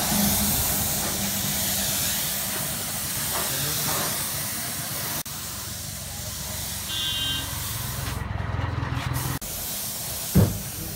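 Gravity-feed paint spray gun hissing steadily as compressed air atomises red colour coat onto a car body panel. The spray stops for about a second near the end, and a short thump follows just before the end.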